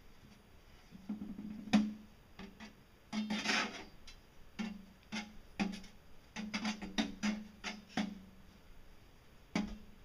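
A metal bar driven down again and again into a sheet-metal tube: a dozen or so irregular clanks, the tube ringing briefly after each, with a scraping stretch about three seconds in.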